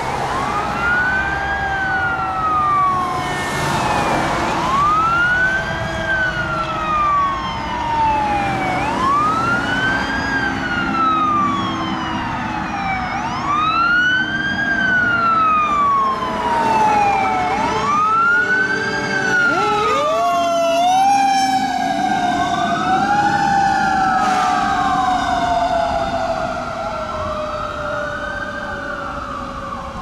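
Fire engine siren in wail mode, rising quickly and falling slowly about every four and a half seconds. About two-thirds through, a second, lower siren tone winds up and then slowly falls, with traffic noise underneath.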